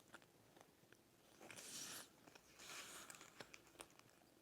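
Faint chewing of a cookies-and-cream polvoron: two short, soft crunching spells about a second apart, with a few small clicks between them.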